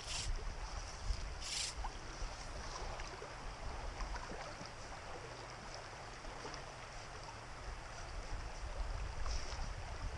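Small creek water running over a shallow riffle, a steady hiss, with a low uneven rumble of wind on the microphone. A few brief hissing sounds come through, one near the start and one near the end.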